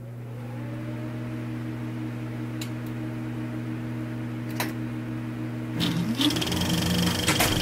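Steady low synthesized drone made of several held tones, with a couple of faint clicks. About six seconds in it shifts: a rising sweep comes in and a high tone enters, leading into the intro music.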